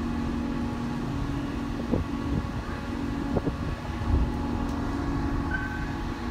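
Steady mechanical hum of the moored 14,125-ton car ferry Lavender's onboard machinery: a low rumble with a constant droning tone, broken by a few brief knocks, the loudest about four seconds in.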